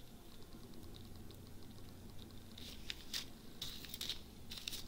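Faint crinkling and clicking of small plastic zip-lock bags of diamond-painting rhinestones being handled and set down, the stones shifting inside. The clicks come more often in the second half.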